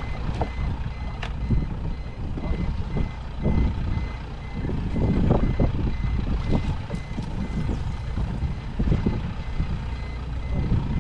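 A quick, even electronic beeping on one high tone, over heavy wind rumble on the microphone and scattered thumps of waves against a small boat.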